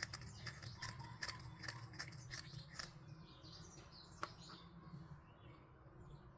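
Light, quick clicks and taps of small plastic toy pieces being handled, many close together in the first half and one sharper click about four seconds in, over a low steady hum.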